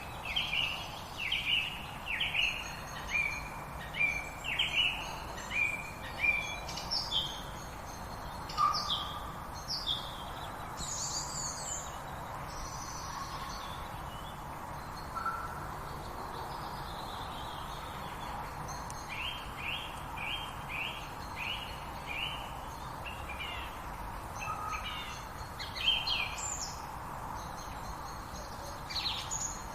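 Several songbirds singing and calling in quick runs of short, high, falling chirps, with a lull in the middle, over a steady background hiss.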